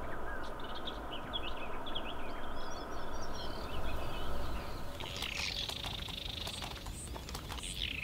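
Wild birds chirping and calling over a steady rushing background. About five seconds in the background drops away and a fast, dense chattering of birds takes over.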